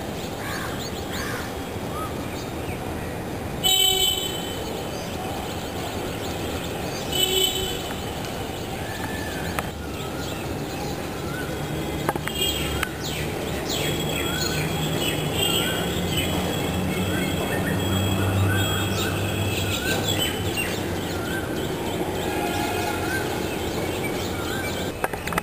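Steady urban traffic noise, with two short vehicle horn honks about four and seven seconds in. A bird chirps again and again through the second half.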